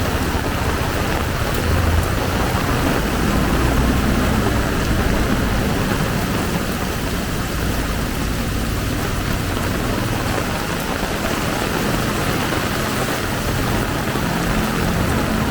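Heavy rain pouring steadily, with the low rumble of a motor vehicle's engine underneath, strongest over the first few seconds and again near the end.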